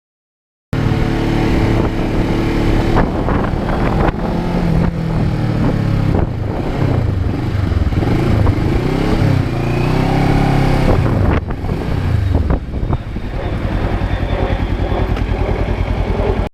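Kawasaki Ninja 650R's parallel-twin engine running, its pitch rising and falling as the revs change, settling into an even low pulse near the end. It cuts in abruptly about a second in.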